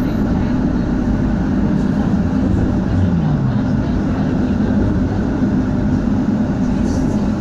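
HTM GTL8 tram running along the track: a steady low rumble of motors and wheels on rails, with a short tone dropping in pitch about three seconds in.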